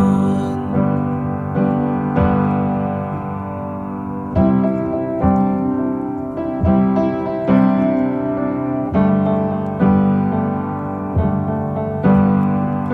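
Background music: an instrumental piano passage playing chords with a steady pulse, no singing.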